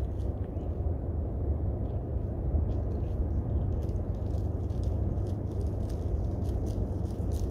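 Steady low rumble of wind buffeting the microphone, with faint scattered ticks and scratches that become more frequent about halfway through.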